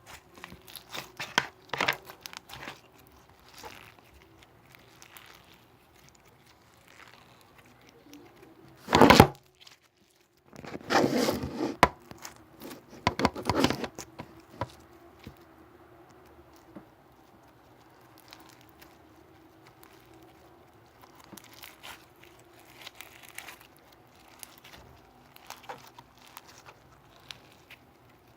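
Irregular rustling and crinkling with scraping clicks, loudest in a short burst about nine seconds in and in a busy stretch a couple of seconds later.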